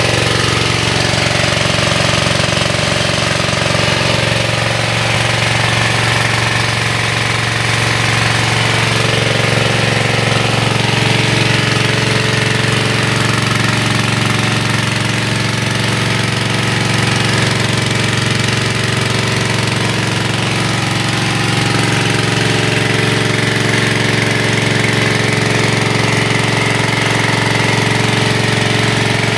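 Small 1.5 HP diesel engine running steadily at an even speed, driving an HTP high-pressure washer pump.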